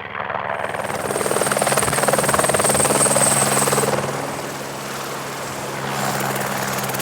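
Helicopter running, with a steady rapid rotor chop and a high whine in the first half. It grows louder about a second in, eases off around the middle, then builds again.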